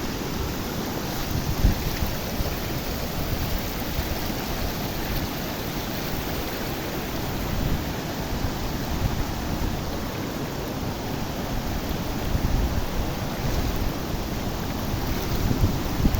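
Steady rushing roar of a large waterfall, with low gusts of wind buffeting the microphone now and then.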